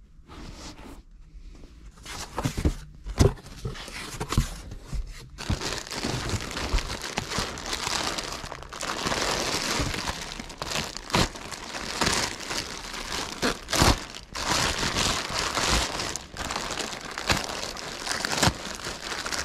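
Plastic wrapping crinkling and rustling as hands dig into a cardboard box and pull at wrapped items. For the first few seconds there are only scattered knocks of handling; about five seconds in the crinkling becomes continuous, with sharp snaps through it.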